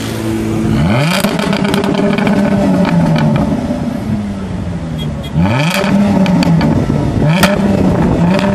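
Jaguar F-Type's supercharged V6 revved hard while standing: three sharp blips, about a second in, at about five and a half seconds and near seven seconds, each falling slowly back. Sharp cracks from the exhaust follow the revs.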